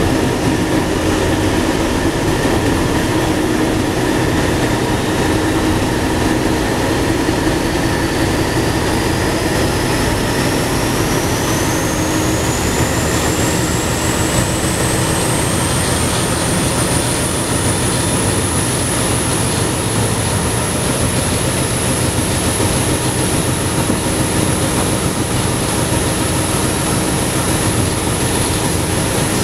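Class 31 diesel-electric locomotive under power, heard inside its cab: a steady engine drone with running and rail noise. A high whine climbs in pitch for about ten seconds, a third of the way in, then holds steady as the train gathers speed.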